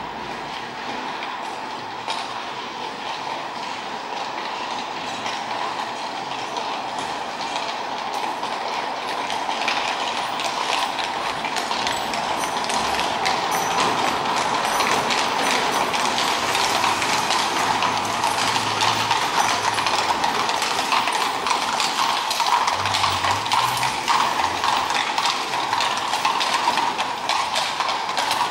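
Horse-drawn carriage approaching: hooves clopping and wheels rattling, growing steadily louder as it comes near.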